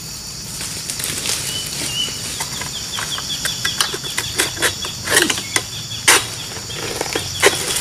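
Egrek, a long metal pole with a hooked sickle blade, knocking and rustling against oil palm fronds as it is worked up into the crown: a run of sharp knocks and rustles, the loudest about five and six seconds in.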